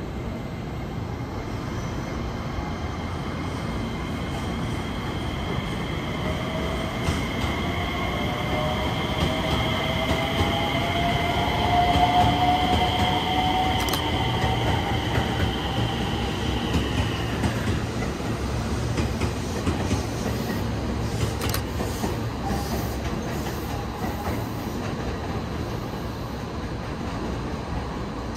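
JR West 227 series electric train pulling out, its motors giving a whine that rises in pitch as it gathers speed, over steady wheel-on-rail noise. Loudest about halfway through; the whine fades out after about two-thirds of the way.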